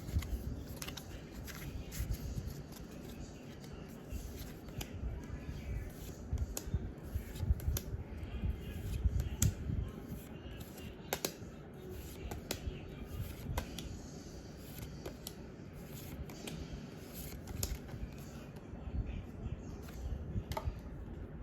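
Pokémon trading cards and booster pack wrappers being handled close to the microphone: scattered sharp clicks, snaps and rustles over low handling bumps.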